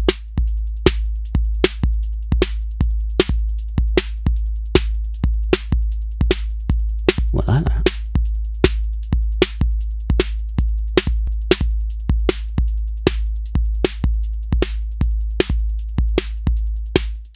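Electronic drum loop from a Eurorack modular synthesizer, played through a patched-together compressor: an envelope follower drives a VCA that rides the drums' volume. A heavy bass drum sits under crisp ticks at about four a second.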